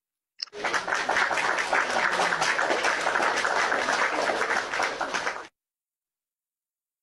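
A burst of applause-like crowd noise, about five seconds long, that starts and cuts off abruptly.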